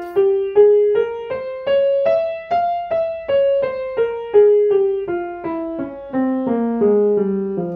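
Piano playing an F harmonic minor scale with the right hand, one note at a time at an even pace of a little over two notes a second. It climbs about an octave and steps back down, with the seventh degree raised to E natural.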